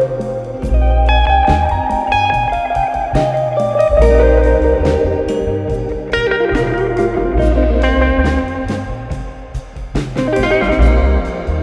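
Background music: an instrumental track led by guitar over slow, heavy bass notes.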